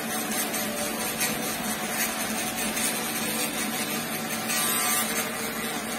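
Andis electric shaver buzzing steadily against the scalp as it shaves the side of a fade, a constant hum under a rasping hiss.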